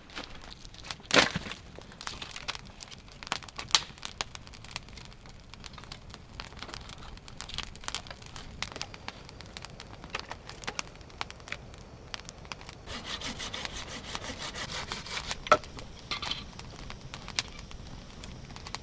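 Hand saw cutting through a dry pine trunk: wood rasping under the saw, with a run of quick strokes near the end and a few sharp knocks, the loudest about a second in.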